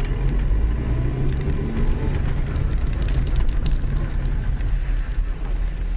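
Steady low engine hum and running noise of a car heard from inside its cabin, with a few faint clicks about midway.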